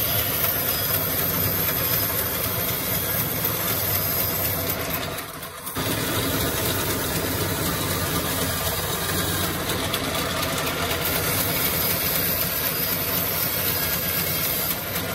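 Large sawmill bandsaw running steadily as a wooden plank is fed by hand through its blade, a continuous loud mechanical noise. The noise drops briefly about five and a half seconds in, then carries on.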